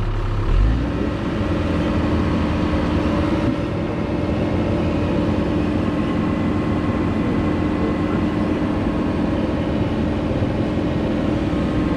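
Cat 304 mini excavator's diesel engine going from a low idle up to a higher steady speed about half a second in, then running evenly.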